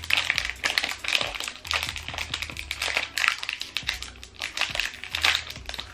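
Thin plastic snack wrapper crinkling and crackling as it is pulled open by hand, in close, dense clusters of sharp crackles.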